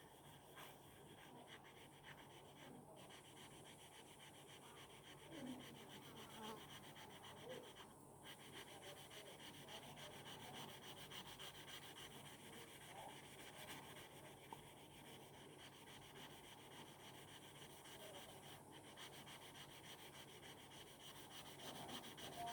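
Faint rubbing of a stainless steel broadhead blade stroked across 2000-grit wet and dry sandpaper during sharpening, over a low steady hum.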